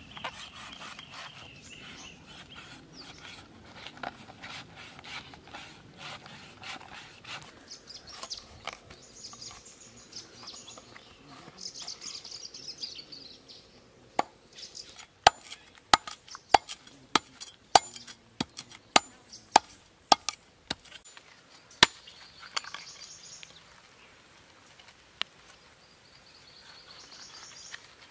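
A large knife cutting into the husk of a green coconut: rough shaving and scraping strokes first, then a run of about a dozen sharp chopping strikes, one or two a second, through the middle, and quieter scraping into the fibrous husk near the end.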